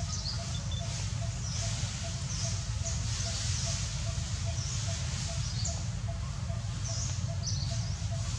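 Outdoor ambience of birds chirping in short high-pitched bursts every second or so, with a faint pip repeating about three times a second, over a steady low rumble.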